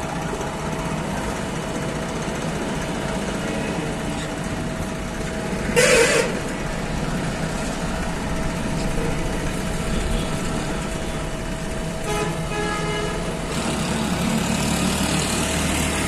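JCB 3DX backhoe loader's diesel engine running at a steady idle, with road traffic going by and a brief loud hiss about six seconds in.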